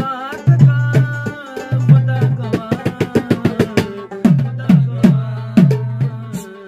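Pashto folk music: a rubab plucked in quick runs of ringing notes over a hand drum's deep strokes, some of which bend down in pitch.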